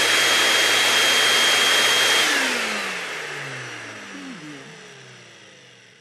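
Vacuum cleaner running steadily with a high whine, then switched off about two seconds in. The motor winds down, its whine falling in pitch as the sound fades away.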